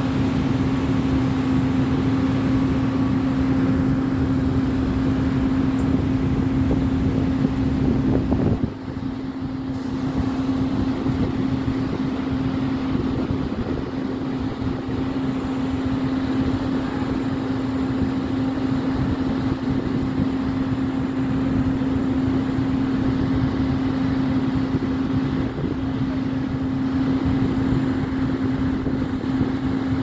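Diesel engine of a truck-mounted concrete boom pump running at steady, raised revs to drive the pump: a continuous drone with a strong steady hum, dipping briefly about nine seconds in.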